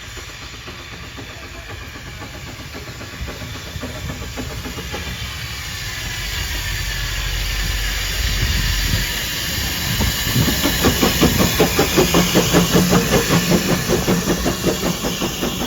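A train draws closer and grows steadily louder, with a continuous hiss. From about two-thirds of the way in, a regular rhythmic beat sets in at about two a second.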